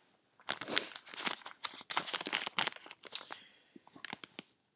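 Paper tearing and crinkling as an advent calendar door is opened: a quick, irregular run of crackles that thins out to a few faint clicks near the end.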